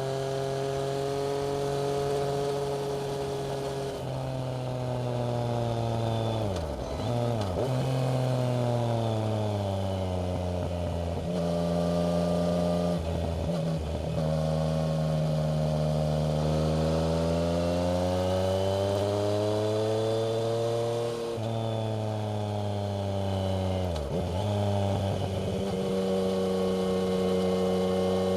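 Yamaha MT-09's inline three-cylinder engine running through an aftermarket Black Widow exhaust while the bike is ridden, the note sinking and climbing slowly as the throttle is worked. It dips sharply three times, about a quarter of the way, halfway and most of the way through.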